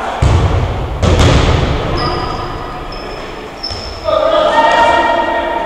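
A hit ball game ball thudding twice, about a second apart, echoing in a large gymnasium hall; players' voices call out near the end.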